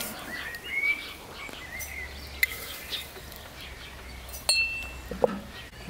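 A metal teaspoon clinking against a metal tea tin as loose black tea is scooped out, a few scattered clicks with one ringing ping about four and a half seconds in. Birds chirp in the background.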